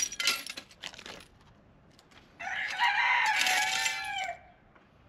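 Glass bottle shards clinking and clattering for about the first second, then a rooster crows once, a single crow of about two seconds.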